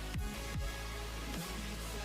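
Electronic dance background music: a steady deep bass with booming kick drums that drop quickly in pitch.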